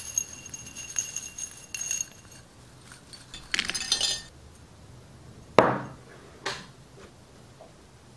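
Metal sewing pins clinking and jingling in a small ceramic bowl, then a quick rattling pour as the pins spill out onto a sandwich. A single loud knock follows a little past the middle, with a smaller one about a second later.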